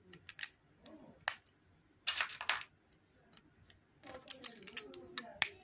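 Lego plastic plates clicking and rattling as they are handled and pressed together by hand. A few sharp clicks, a denser clatter about two seconds in, and a quick run of clicks in the last second and a half.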